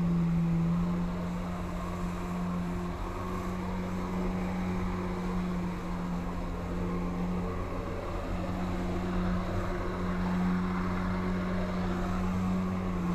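Jet ski engine running steadily at high revs, driving water up the hose to a flyboard. The drone steps up slightly in pitch about three seconds in, over the hiss of churning water.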